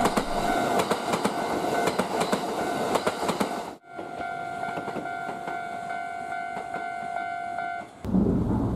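Kintetsu Hinotori (80000 series) limited express passing close by, its wheels clicking rapidly over rail joints. About four seconds in the sound cuts abruptly to a quieter train running past on a parallel track, with fewer clicks; a steady tone sounds under both.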